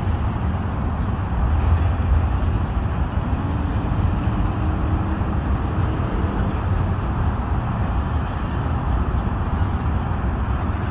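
Freight train of tank cars rolling across a bridge: a steady rumble of wheels on the rails.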